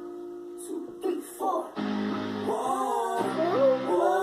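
A song with guitar and a singing voice. After a quieter lull it comes back in loudly about two seconds in, with chords and a voice line that slides in pitch.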